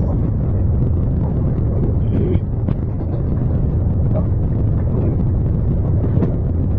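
Chevy Colorado's 2.5-litre four-cylinder engine running steadily, a constant low rumble with a few faint clicks.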